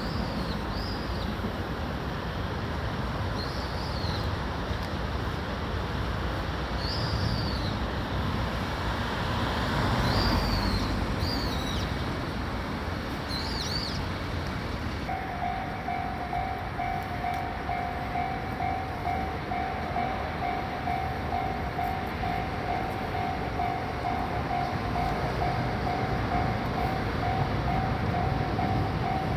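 Steady city traffic hum with a few short high chirps in the first half. About halfway through, a Japanese level-crossing warning bell starts and rings on in regular rapid strokes, the signal that a train is approaching the crossing.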